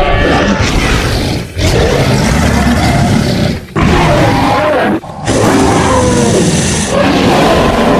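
Movie-style Tyrannosaurus rex roar sound effects: four loud, rough roars in a row, each one to three seconds long and cut off sharply before the next begins.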